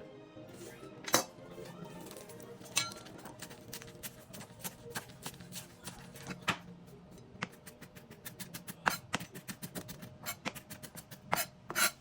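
Knife chopping vegetables on a cutting board, scattered strokes at first, then quicker, several a second, in the last few seconds, over soft background music.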